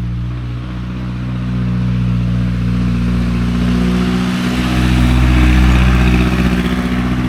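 Jeep engine running with a steady low drone, growing louder past the middle as rushing road and wind noise builds.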